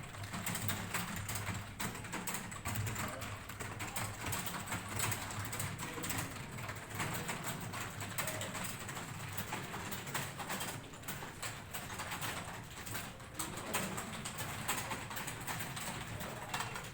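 Several people typing on keyboards at once: a dense, irregular stream of key clicks, over a low steady hum.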